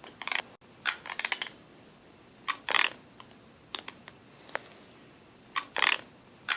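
Teeth grinding in sleep (bruxism): about a dozen short bursts of scraping and clicking at uneven gaps, some as quick runs of clicks, the loudest near the middle.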